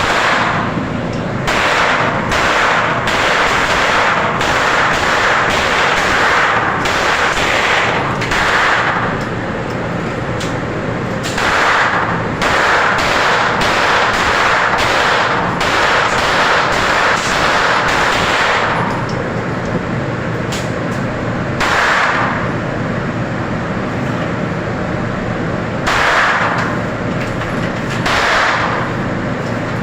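Gunfire: quick strings of shots, a few a second, over roughly the first nine seconds and again from about 11 to 19 seconds in. After that come a few spaced single shots near 22, 26 and 28 seconds. A steady low hum runs underneath.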